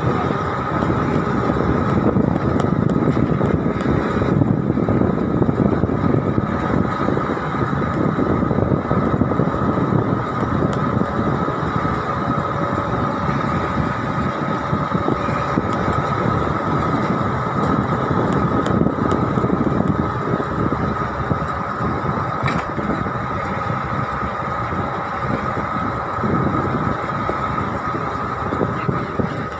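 Steady road noise from a moving vehicle: engine and tyres running evenly, with a constant thin whine over the rumble.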